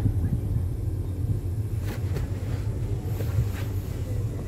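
Steady low rumble of a small automatic car driving slowly, heard from inside the cabin, with a few faint clicks around the middle.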